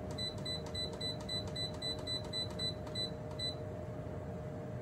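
Induction cooktop control panel beeping as its button is pressed to set the heat to low. A quick, regular run of short high beeps, about four or five a second, stops about three and a half seconds in.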